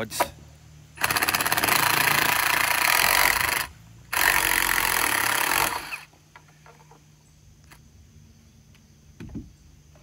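Cordless drill fitted with a 90-degree angle attachment driving screws into deck blocking, in two runs with a fast rattle: about two and a half seconds starting a second in, a short pause, then about a second and a half more. After that, only a few faint knocks.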